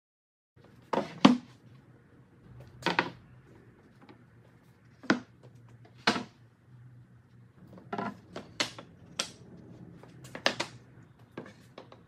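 MDF sheets and scraps being set down and shifted into place on top of a wooden cabinet: a dozen or so sharp knocks and clunks at irregular intervals, a few in quick pairs.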